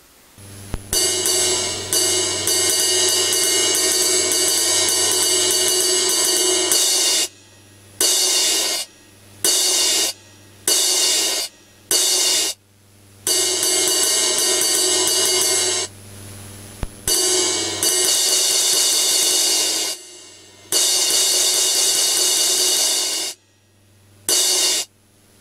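Crash cymbal sound from an Alesis Crimson electronic drum module, triggered by a 12-inch Laurin metal crash cymbal pad being struck with a stick. A long ringing crash is followed by a run of short crashes about one a second, then longer crashes again, and many of them are cut off suddenly.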